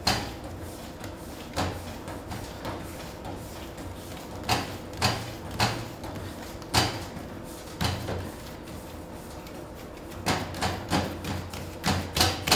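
Gingerbread dough being kneaded by hand on a stainless-steel worktop: irregular soft thumps and knocks as the ball is pressed, rolled and turned, several in quick succession near the end.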